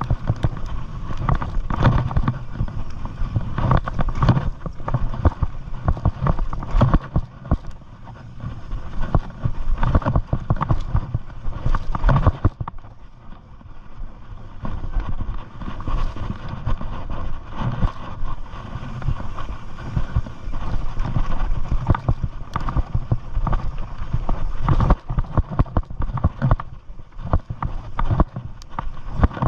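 Mountain bike riding fast down a dirt singletrack: tyres rolling over dirt and the bike rattling and knocking over bumps, with a steady rushing noise underneath. It eases off for a couple of seconds about thirteen seconds in.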